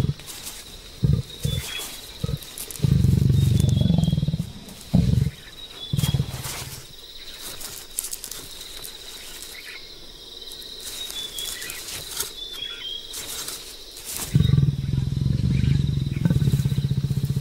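Leopard growling: several short, deep growls in the first few seconds, then a longer pulsing growl starting about three-quarters of the way through.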